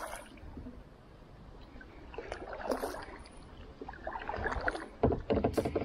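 Kayak paddle strokes splashing in the water, in a few spells, with the loudest splashes near the end.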